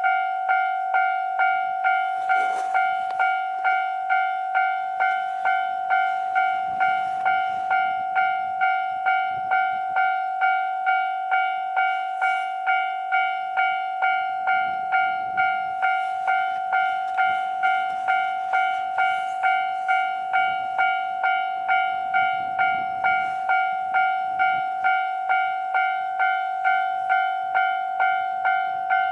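Japanese level-crossing warning bell ringing steadily at about two electronic clangs a second, as a JR Hokkaido H100 diesel-electric railcar runs through the crossing with its low running noise underneath.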